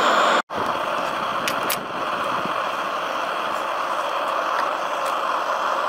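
Steady rushing air noise from a homemade melting furnace's electric blower fan. It is broken by a split-second dropout just after the start, and a couple of light clicks come about a second and a half in.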